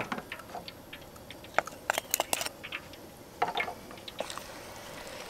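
Wooden ladle stirring sugar water in a metal wok, knocking and scraping against the pan in scattered clicks, with a quick cluster of louder knocks about two seconds in.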